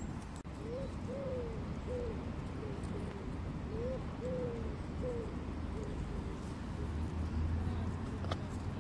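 A pigeon cooing: two phrases of hooting notes, each with one longer note near its start.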